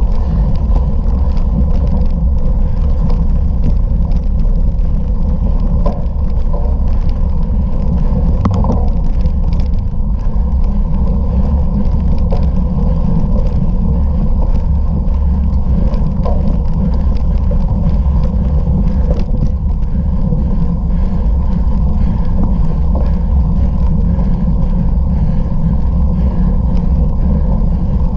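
Steady loud low rumble of riding noise on a bicycle in an off-road race: wind buffeting the camera's microphone together with tyre and bike rattle, unbroken throughout.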